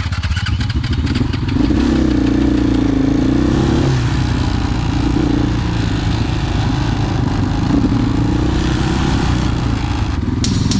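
Vehicle engine running steadily under load, its pitch rising and falling a little as it revs.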